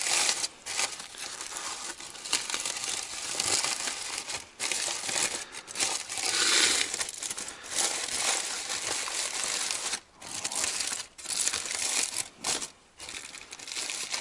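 Several layers of aluminium foil crinkling and crumpling as hands unfold them, in irregular spells of rustling broken by short pauses.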